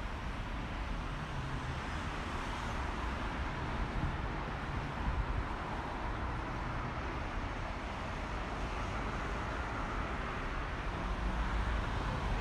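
Steady road traffic noise from cars passing along a city street.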